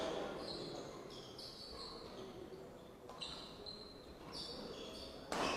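Quiet badminton court between points, with a few short high squeaks, then one sharp crack of a racket striking the shuttlecock near the end.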